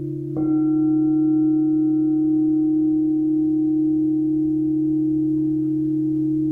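Crystal singing bowls ringing. One bowl is struck with a mallet about half a second in, adding a higher ringing tone that sustains and slowly fades over the steady low hum of the bowls already sounding.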